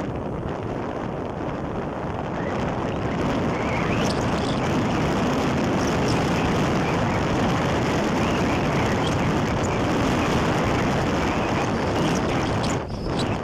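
Steady wind rush on the microphone of a moving motorcycle, mixed with the bike's running and road noise, with a brief dip near the end.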